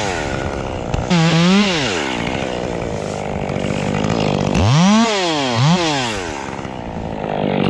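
Two-stroke chainsaw revved in short bursts between idling: one rev about a second in, then two quick revs around five seconds in, the engine pitch climbing steeply and falling back each time.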